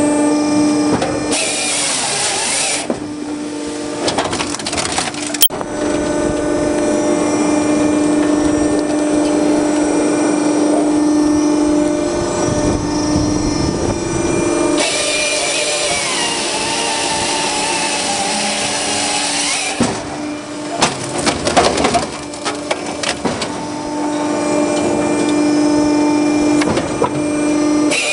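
TMS-45 firewood processor running with a steady hum from its drive. About halfway through, its hydraulic chainsaw bar cuts through a log for about five seconds, the pitch sagging under load, after a shorter cut near the start. Wood then cracks and knocks as the round is split.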